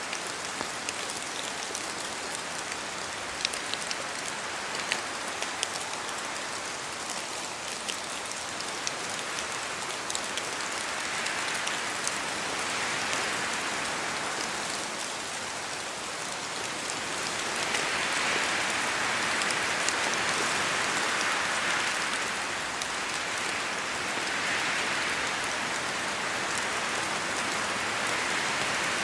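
Steady rain in a forest, with scattered heavier drops falling from the trees. Wind swells the rain's hiss in slow surges several times in the second half.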